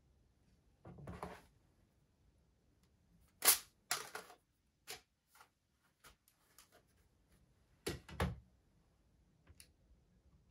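Objects being handled and set down on a desk, among them a pen put down and a calculator placed on the desktop: a scattered run of sharp clicks and knocks, the loudest about three and a half seconds in and a double knock around eight seconds.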